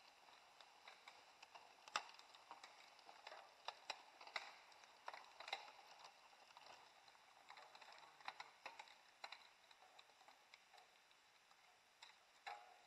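Faint, irregular clicks and rattles of mountain bikes riding past on a forest dirt trail, over a quiet background hiss.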